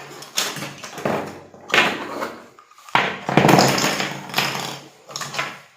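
Knocks and metallic clatter from handling a single-barrel shotgun, with a louder, longer run of clatter about three seconds in.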